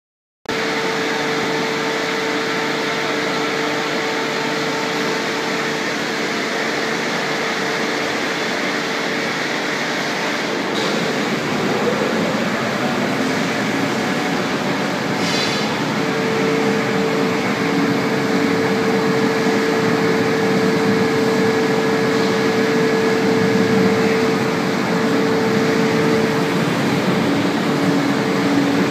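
Robotic waterjet cutting cell running: a loud, steady hiss with a constant whining tone, and a couple of brief clicks partway through.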